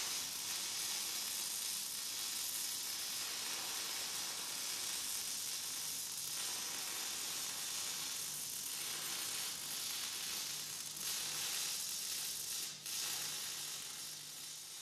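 Electric arc welding a steel wheel centre into a tractor wheel rim: the arc sizzles steadily as a continuous bead is run around the centre. It breaks off briefly about thirteen seconds in, then tapers off near the end.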